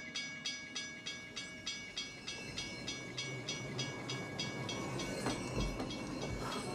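Railroad crossing bell ringing fast and evenly, about three strikes a second, fading out over the first few seconds, while the low rumble of an approaching train grows louder toward the end.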